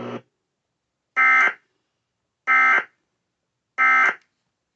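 Emergency Alert System end-of-message code: three short, identical buzzing data bursts about 1.3 seconds apart. It signals that the alert message is over.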